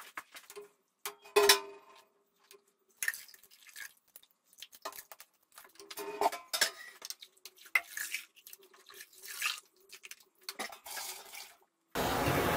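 Metal scoop and pitcher clinking and knocking against stainless steel brew pots, with drips and splashes of wet grain mash being ladled out for a thick decoction; the loudest knock comes about a second and a half in, and the pots ring faintly after the knocks. Near the end a steady hiss starts from the propane burner.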